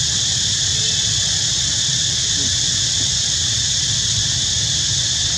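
Steady high-pitched drone of an insect chorus, unchanging throughout, over a low rumble.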